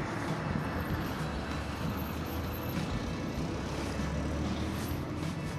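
Steady low rumble and hiss of outdoor background noise, even throughout with no distinct events.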